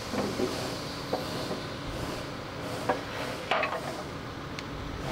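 A few light metallic clinks and knocks as the engine and its mounts are shifted into place on the rubber engine mounts. The strongest knock comes about three and a half seconds in, over a steady background.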